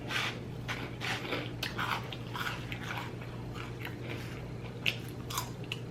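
Close-up chewing of a grinder sandwich: wet, smacking mouth sounds and soft crunches of the roll and dressed shredded lettuce, in irregular bursts.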